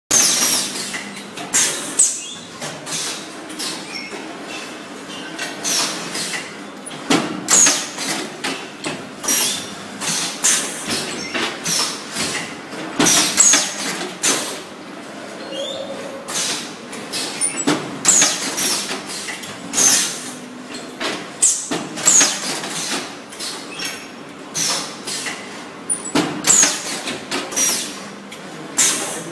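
Pneumatic high-frequency welding machine at work: repeated short hisses of air from its press cylinders and clacks of the heads and sliding tray, coming irregularly every second or so, over a faint steady hum.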